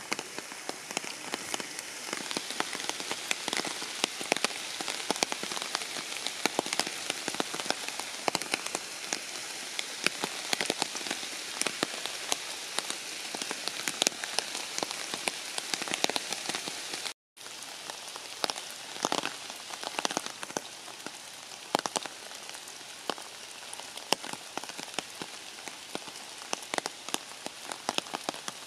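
Steady rain falling on leaves and ground, with many individual drops striking close by. The sound cuts out for a split second about two-thirds of the way through.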